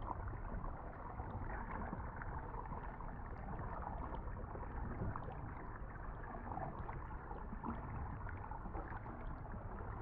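Steady splashing and rushing of river water, with no clear single splashes or calls standing out.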